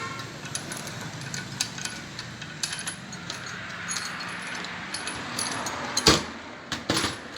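Hand tools clinking on the metal parts of a steering rack as it is being unbolted: scattered light taps and clicks, then two louder metal knocks near the end.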